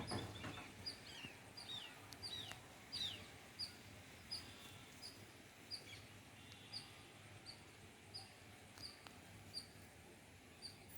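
Birds chirping: a short high chirp repeats evenly about twice a second, with a few descending calls in the first three seconds.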